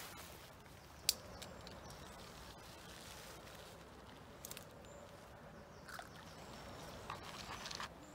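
Fishing rod and reel being handled and settled on rod rests: a sharp click about a second in, then scattered light clicks and rustles, over a faint steady outdoor background.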